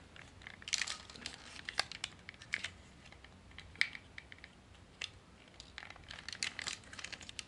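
Plastic parts of a Takara Masterpiece MP-36 Megatron figure being handled and folded: faint, irregular small clicks and taps, in small clusters.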